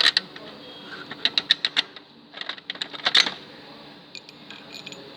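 Sharp metallic clicks and clatter of hand tools and car parts being handled during an alternator removal. A quick run of about six clicks comes a little over a second in, and a busier rattle follows near the middle.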